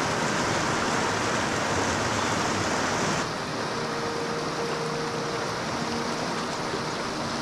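Steady rush of flowing river water. About three seconds in it abruptly turns slightly quieter and duller.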